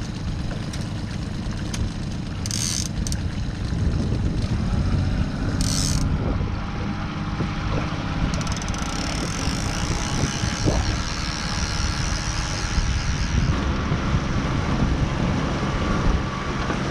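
Honda outboard motor running steadily at trolling speed while a fishing reel's clicker ratchets as line pays out behind the boat: two short spells, then a longer run of several seconds in the middle.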